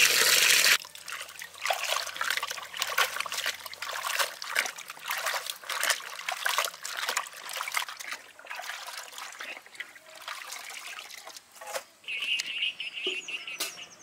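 Water running from a tap onto pumpkin leaves in a metal bowl for about the first second. It is followed by hands sloshing and splashing the leaves about in a metal basin of water as they are washed, in irregular bursts.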